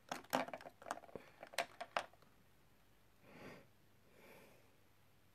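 Make-up brushes and containers being handled on a table: a quick run of small clicks and taps for about two seconds. Then two soft breaths through the nose.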